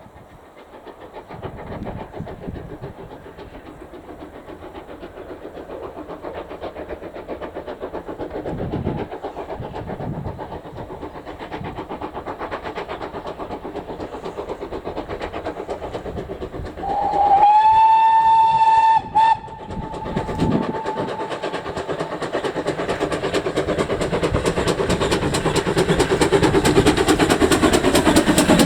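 Steam locomotive working, its rhythmic exhaust chuffing growing louder as it approaches. About two-thirds of the way through, one whistle blast of about two seconds slides up onto a steady pitch, breaks briefly and stops.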